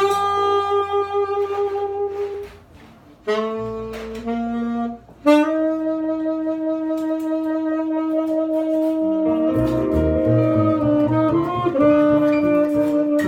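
Jazz duo of saxophone and double bass. The saxophone plays a slow melody of long held notes, and the double bass plays low plucked notes underneath, which move more busily in the second half.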